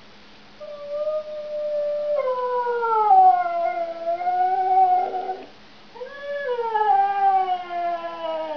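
Hokkaido dog (Ainu-ken) howling: two long howls, the first starting under a second in, holding level and then dropping and falling in pitch, the second starting about six seconds in, rising briefly and then sliding down.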